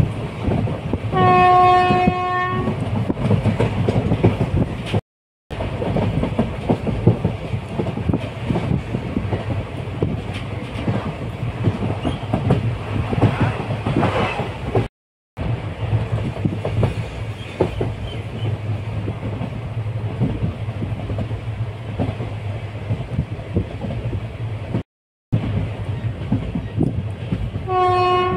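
Train running along the track with a steady rumble and wheel clatter, its horn sounding one long blast about a second in and again at the very end. The sound cuts out completely for a moment three times.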